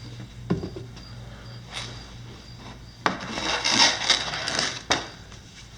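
Plastic under-engine panel being dragged out from under a car, a knock or two, then about two seconds of scraping along the ground ending in a knock.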